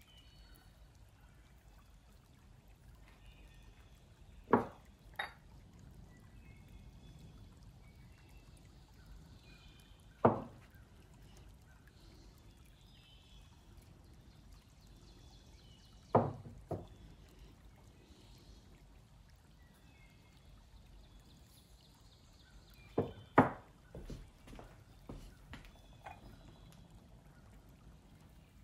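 Heavy cast metal ingots being set down one by one on a wooden workbench, each giving a sharp knock every few seconds. Near the end comes a close pair of knocks, the loudest, followed by a few lighter clinks.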